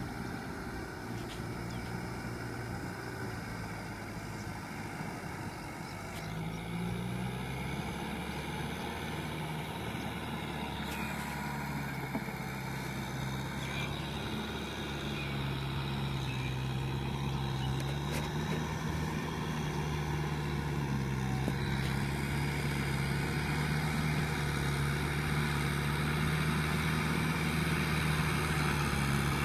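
Kubota M6040SU tractor's diesel engine working under load through a flooded paddy, its note rising and falling, growing steadily louder as the tractor comes closer.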